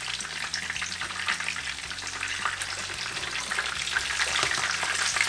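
Breadcrumbed chicken breasts shallow-frying in about a centimetre of hot oil in a frying pan, sizzling and crackling steadily.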